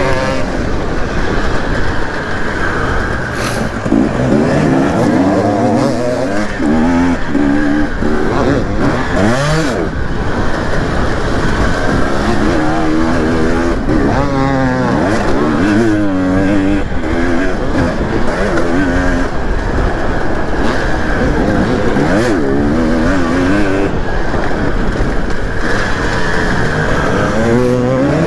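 Dirt bike engine heard on board while riding a motocross track, its pitch rising and dropping over and over as the throttle opens and closes through the gears, with other bikes running nearby.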